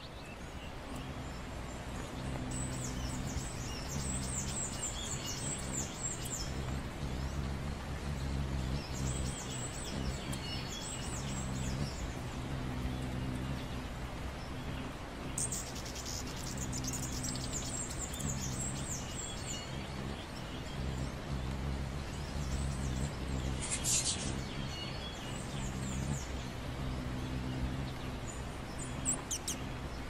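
Hummingbirds at a feeder: high-pitched chipping twitters in repeated bursts, over a low hum that comes and goes, the sound of their hovering wings.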